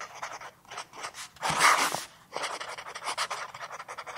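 Pen-scribbling sound effect: a run of quick, scratchy strokes, with one longer, louder scratch about a second and a half in.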